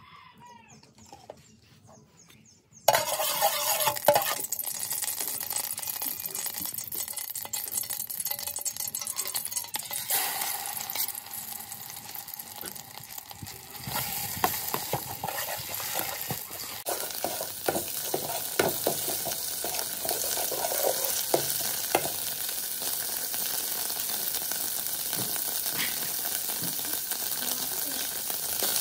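Faint trickle of oil poured into a metal pot, then, about three seconds in, a sudden loud sizzle as chili paste hits the hot oil, going on as the paste is fried and stirred with a metal spoon scraping the pot.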